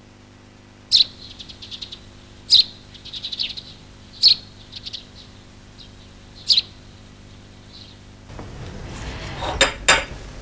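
Small birds chirping: four sharp chirps spaced about two seconds apart, each followed by quieter twittering. Near the end two short knocks are heard.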